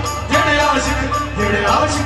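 Live Punjabi devotional song with a singer's voice over keyboard and hand drums, played steadily with a regular beat.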